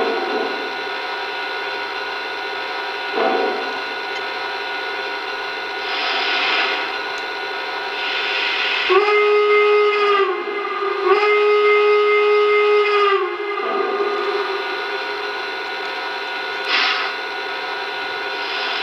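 Lionel Greenbrier model steam locomotive's onboard sound system playing standing steam sounds: a steady hiss and hum with occasional short rushes of steam. Midway through, the steam whistle sounds two long blasts.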